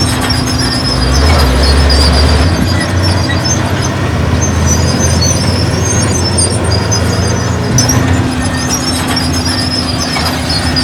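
Heavy diesel earthmoving machinery working. The engine's low rumble grows heavier about a second in and eases again near the end, with high squealing throughout.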